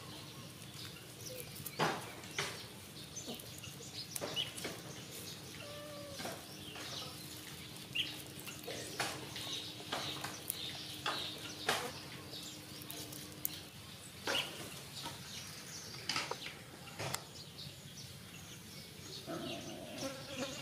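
Outdoor ambience with many scattered sharp clicks and short chirps. A steady low hum runs from about four seconds in until about two-thirds of the way through.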